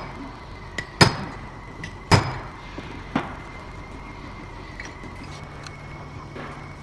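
Steel planetary gears and shaft from a final drive gearbox clinking together as they are handled, three sharp metallic clinks about a second apart. A steady low hum starts about five seconds in.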